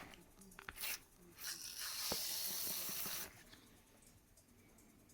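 Hissing from a tyre being worked on during a leak check after a puncture repair: a short hiss about a second in, then a steady hiss of about two seconds that cuts off.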